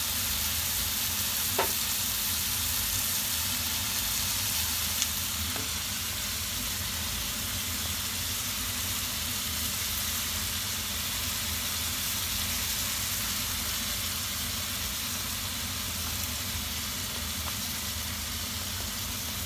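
Chicken, chicken hearts and cabbage frying in an oiled skillet: a steady sizzle over a low hum, with a couple of faint clicks in the first few seconds as sesame oil and sliced vegetables go into the pan.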